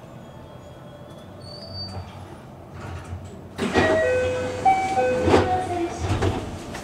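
Electric commuter train standing at a station platform with a low steady hum. About three and a half seconds in, louder sounds start, with a run of chime-like tones at changing pitches.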